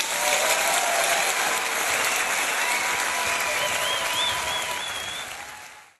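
Audience applauding, fading out near the end.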